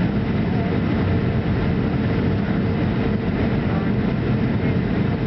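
Steady cabin noise inside a Boeing 737-300 on descent to land: the CFM56-3 turbofan engines and the rush of air over the airframe, heard from a seat over the wing, with a faint steady hum.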